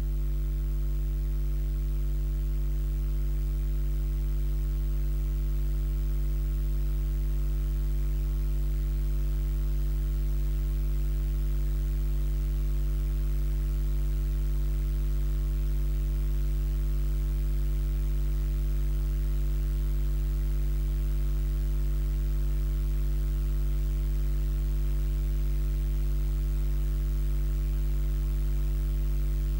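Loud, perfectly steady electrical mains hum: a low drone with a buzzy stack of overtones and faint hiss, unchanging throughout.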